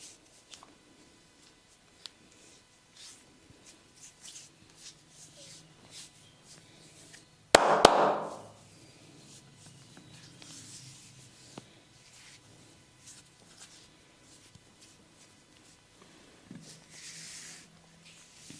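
Massage sounds: hands rubbing and lightly tapping with scattered small clicks. About seven and a half seconds in comes one loud, sharp double crack with a brief slap-like burst, and there is a shorter brushing hiss near the end.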